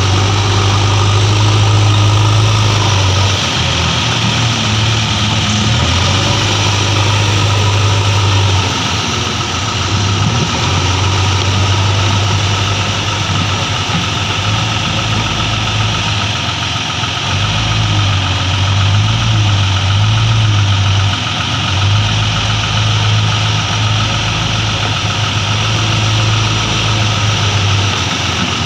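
JCB 3DX backhoe loader's diesel engine running under load as the machine drives and works its front bucket, the engine note rising and falling at times, most around the middle.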